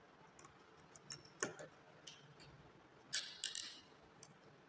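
Light scattered clicks and taps of a screwdriver and wire being worked into the screw terminal of a DIN-rail circuit breaker, with a quick cluster of sharper metallic clicks about three seconds in.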